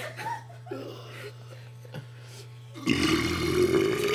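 A kid's long, loud, rough burp, starting about three seconds in and still going at the end, after a few faint short sounds.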